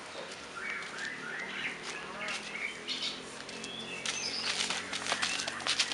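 Small birds chirping in short high calls, with a run of sharp clicks and scuffs in the last two seconds.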